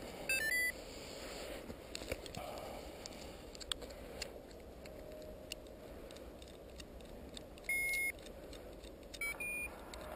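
Electronic beeps from a paragliding variometer: a short rising run of tones at the start, one longer single beep about two-thirds of the way through, and a few quick beeps near the end.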